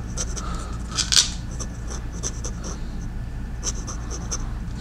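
Steel nib of a Lamy Safari fountain pen scratching across thin Tomoe River paper as words are handwritten, in quick little strokes with the strongest about a second in.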